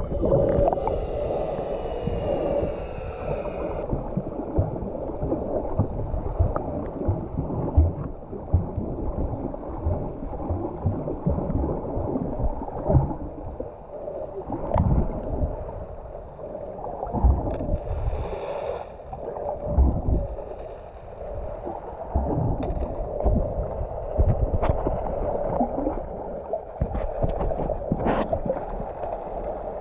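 Muffled sloshing and gurgling of sea water, with many irregular low thumps and knocks.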